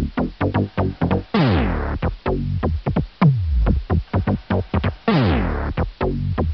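Background music with a fast, busy beat and two long sweeps falling in pitch, about a second in and again about five seconds in.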